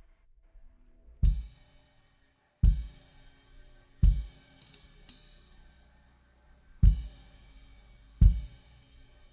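Recorded drum kit played back: five big hits, each a kick drum struck together with a cymbal crash that rings out, spaced about a second and a half apart, with a gap in the middle.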